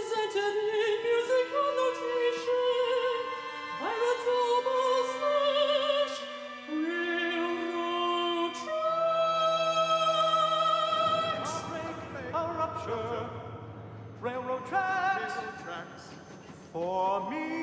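High operatic solo voice singing with strong vibrato over sustained instrumental chords. About two-thirds of the way through, the voice drops out for a few seconds and only low held notes sound, then the singing resumes.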